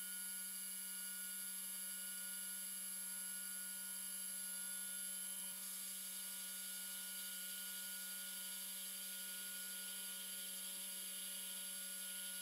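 Metal lathe running a turning cut on a bar held between chuck and live center: a steady motor and spindle hum with several thin, high, steady whining tones. The high tones shift slightly about five and a half seconds in.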